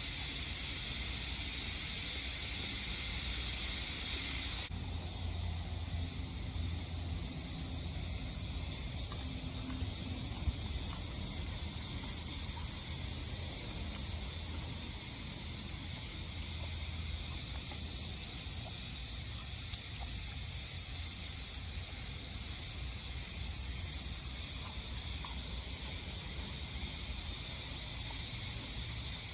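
Cicadas droning in a steady, high-pitched continuous buzz. One of the two pitch layers cuts off about five seconds in.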